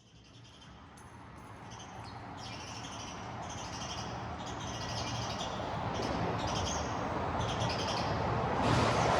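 Street ambience fading in from silence: small birds chirping again and again above a steady low city hum, which grows louder toward the end.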